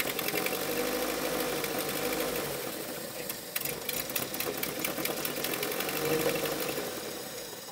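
MG Montego Turbo's 2.0-litre four-cylinder turbo engine running with wavering revs, kept alive on fuel squirted in by syringe rather than through its fuel pump; it fades near the end.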